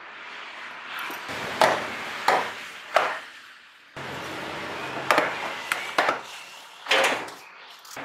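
Sharp knocks and clicks from a Honda Brio's plastic front-end trim (wheel-arch liner and front grille) being handled by hand, about seven separate strikes.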